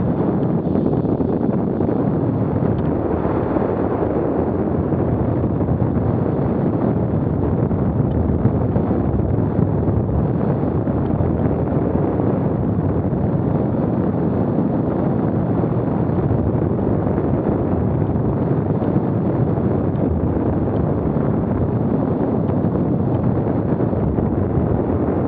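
Steady wind buffeting the microphone: a loud, even rumble of noise with no breaks.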